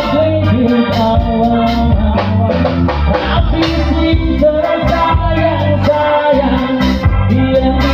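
Live band music through loudspeakers: an electronic keyboard melody with electric guitar over a heavy bass line and a steady beat.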